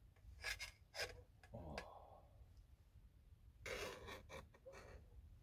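Faint clinks and scrapes of tableware being handled over a cooking pot as food is taken out, a few short knocks and two brief rubbing scrapes.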